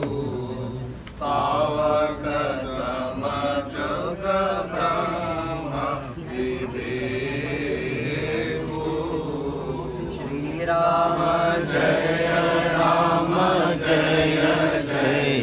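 Voices chanting Hindu funeral mantras in unison, a steady sung recitation that swells louder about a second in and again near the end.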